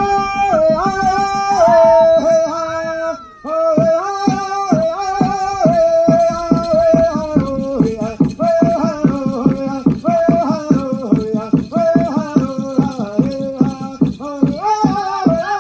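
Pow wow drum group singing a war dance song in high voices over a quick, steady beat on a big bass drum. The song and drum stop briefly about three seconds in, then start again.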